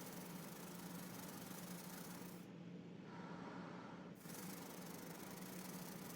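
Faint goldfish-tank noise: a steady low hum, as from an aquarium pump, under a hissing, rattling water noise. The hiss stops about two and a half seconds in and starts again about four seconds in.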